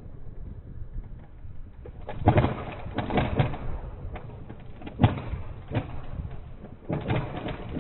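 Wood breaking: several bouts of cracking and snapping, the sharpest crack about five seconds in.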